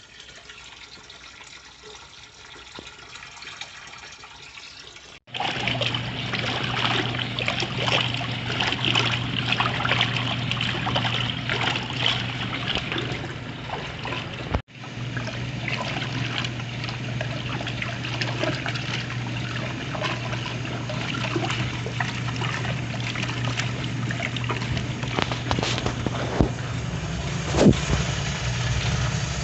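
1962 Bendix Economat washing machine running: a steady motor hum with water sloshing in the tub. It comes in suddenly about five seconds in, after a quieter trickle of water.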